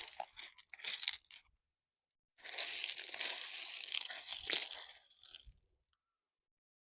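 Rocks crunching and grinding against each other as they are handled and packed into place, in two spells with a short gap, and a sharp knock of rock about four and a half seconds in.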